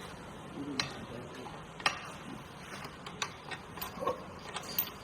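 Irregular light clicks and knocks of hand tools at work on a tractor wheel, about eight of them, uneven in spacing, over a faint steady background noise.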